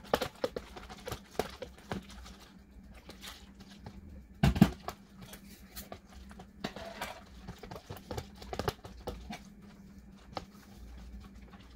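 Wire whisk tapping and scraping against a plastic container as eggs and batter are beaten by hand, in quick irregular clicks, with one louder knock about four and a half seconds in.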